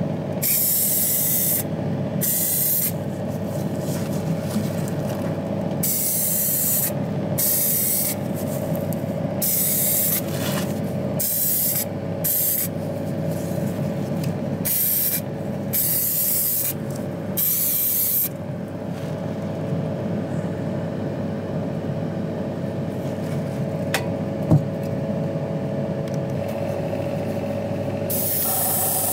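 Abrasive blasting in a blast cabinet: the blast gun fires in short hissing bursts, about a dozen in the first eighteen seconds, stripping a diecast model car body and bumper. A steady motor hum runs underneath; the bursts stop after that, and a steady hiss starts near the end.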